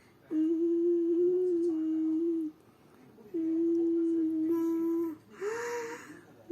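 Humming in two long, steady notes of about two seconds each, with a short pause between them. Near the end comes a brief note that swoops up and down with a breathy rush.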